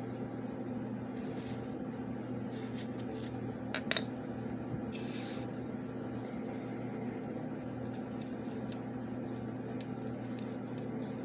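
Light clicks and short scrapes of small objects being handled, over a steady low electrical hum. One sharper click comes about four seconds in.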